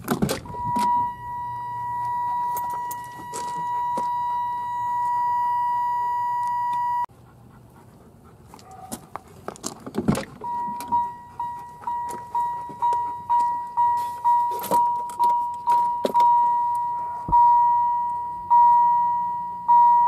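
A GM truck's door-open warning. The old factory door buzzer sounds as one steady tone until it cuts off suddenly about seven seconds in. Then, after a door latch clunk, the replacement 1993–98 Camaro chime module (GM 14101255) rings a repeating chime, each note decaying, quick at first and then slowing.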